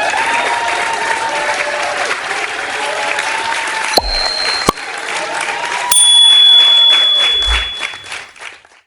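Crowd applauding and cheering, with short bright ding tones about four and six seconds in; it fades out near the end.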